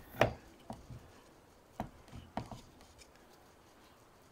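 Wooden ham stand (jamonero) being handled and adjusted: a sharp wooden knock near the start, then several lighter knocks and clicks over the next two seconds.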